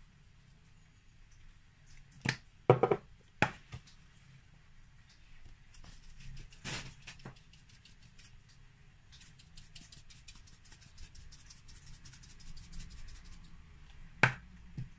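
A spice jar being handled and shaken over a plastic bowl of chicken: a few sharp clicks and knocks of the jar and its cap, the loudest about two to three seconds in, a rustle, then a run of quick light ticks as hot paprika is shaken out, and one more knock near the end.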